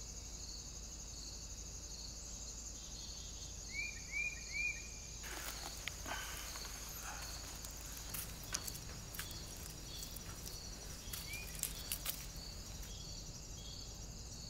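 Steady, rhythmic chirping of insects, with three short rising bird chirps about four seconds in and another near eleven seconds. Scattered light clicks and knocks come from about five to twelve seconds in, as whole peppers are set down on the ashy charcoal.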